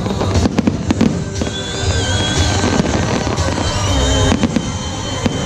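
Fireworks going off in a quick, irregular series of bangs and crackles, over loud show music.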